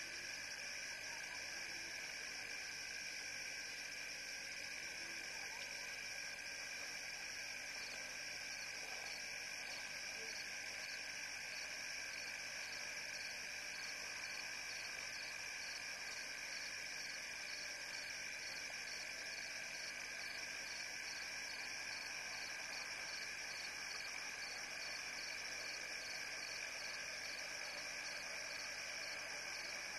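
Steady night chorus of insects and frogs, with continuous high trilling and a rapid pulsing call joining in during the second half.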